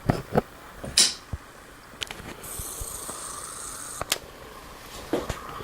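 Handling noise: scattered, irregular knocks and clicks, a short rustle about a second in, and a brief high scraping hiss around the middle.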